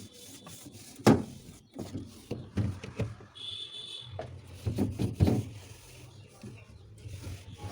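Knocks and clatters of cleaning inside a switched-off refrigerator being wiped down with a damp cloth, the sharpest knock about a second in. A brief high-pitched tone sounds about three and a half seconds in.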